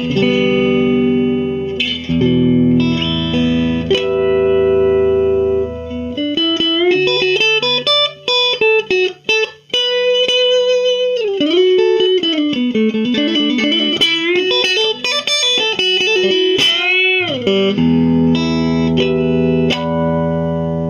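Squier Classic Vibe '50s Duo-Sonic electric guitar playing blues through an amp: ringing chords, then about six seconds in a single-note lead run with string bends, then chords again near the end.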